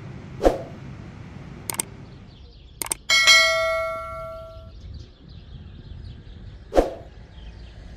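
Subscribe-button sound effect: a few short clicks, then a bright bell-like ding about three seconds in that rings and fades over about a second and a half, and one more click near the end.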